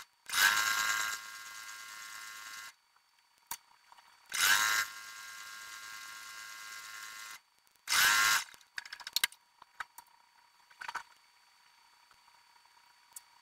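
Sewing machine stitching in three runs, the first two long and the third short, with the motor's whine climbing in pitch at the start of each run; the recording is sped up. A few light clicks and fabric handling follow near the end.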